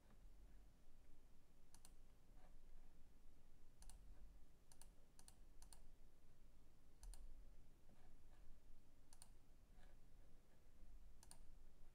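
Faint computer mouse clicks, about eight spread unevenly, several of them quick press-and-release pairs.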